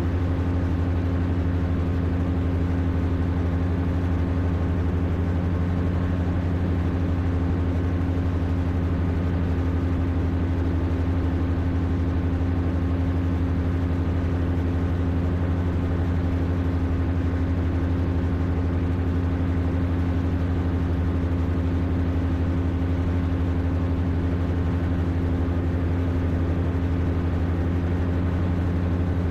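Rotax 582 two-stroke twin engine and propeller of an X'Air Standard microlight running at steady cruise power: an unbroken, even drone.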